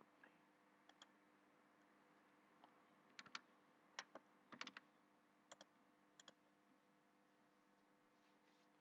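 Faint computer mouse clicks, scattered and often in quick pairs, over a faint steady hum.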